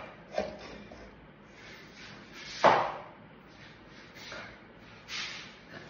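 A plastic container being handled and set up for stirring: a few scattered light knocks and scrapes, with one louder knock a little before the middle.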